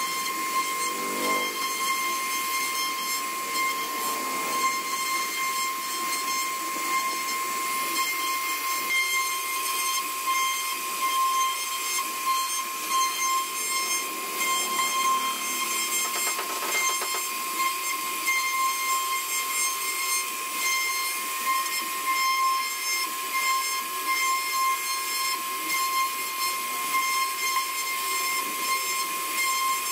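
CNC router spindle cutting wood: a steady high whine with a constant hiss of the bit chipping through the board.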